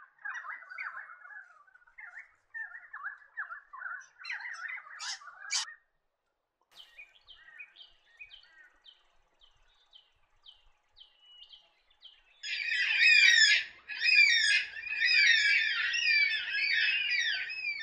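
Bird calls in three separate stretches. First, pied currawongs give wavering, gurgling calls that stop abruptly about six seconds in. After a brief gap come a run of faint, evenly repeated high chirps, then, from about twelve seconds in, a loud, dense chorus of overlapping calls.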